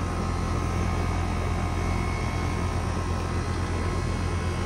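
Rheem RA14AY60 5-ton R-454B air-conditioner condensing unit running in cooling mode: a steady low compressor hum under the even rush of the condenser fan.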